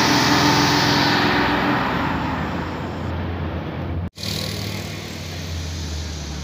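Diesel engine of a Hino box truck pulling past and away up the grade, with its engine note and road noise fading. About four seconds in, the sound cuts out for an instant and is followed by a quieter, steady low engine hum.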